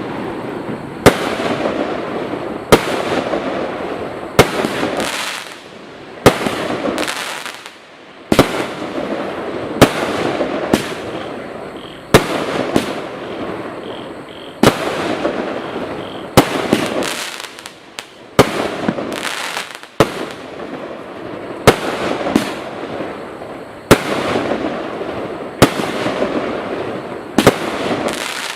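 Total FX Caged Jaguar firework firing a long run of shots: a sharp bang every one and a half to two seconds, each followed by a few seconds of crackling that dies away before the next one.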